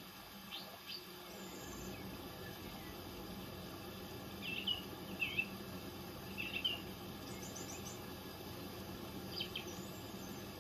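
Small birds chirping: short high calls scattered a second or more apart, with a quick trill about three-quarters of the way through, over a faint steady high hiss.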